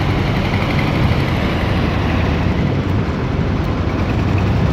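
Motorboat engine running steadily: a low, even drone with a noisy hiss over it.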